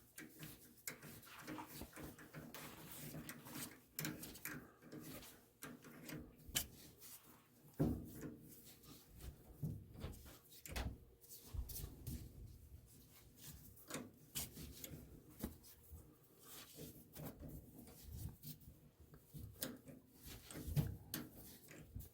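Hand-tapping a 10-24 thread with a tap wrench guided from the lathe's tailstock chuck: irregular clicks, knocks and metal rubbing as the wrench is worked.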